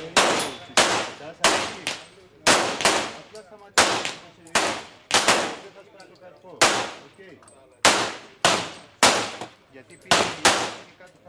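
Handgun shots fired by several shooters along a covered firing line: about seventeen sharp shots at uneven intervals, sometimes two close together, each trailing off in a ringing echo.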